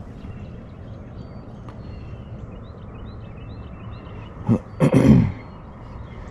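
Steady low hum with a few faint, short high chirps, then a brief loud throat-clearing sound from a person about four and a half seconds in.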